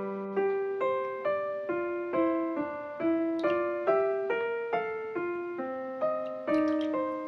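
Background piano music: a gentle melody of single struck notes at an even pace, each note ringing and fading.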